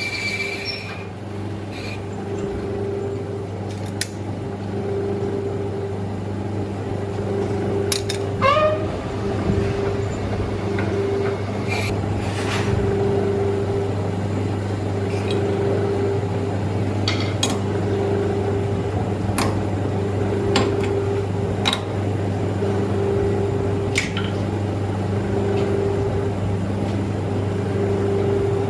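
Manual metal lathe running while cutting a thread: a steady motor hum with scattered sharp ticks and scrapes of the tool on the workpiece. A high squeal dies out about a second in, and a short falling squeal comes about eight seconds in.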